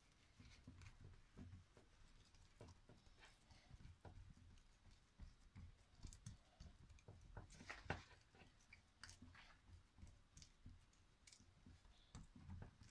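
Faint sounds of hands pressing and patting buttered dough sheets into a metal baking pan: scattered light clicks and soft low thumps, with the sharpest click about eight seconds in.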